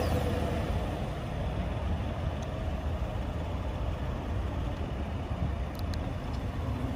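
Chevrolet Silverado Trail Boss's 5.3-litre V8 idling steadily, just after being remote-started from the key fob.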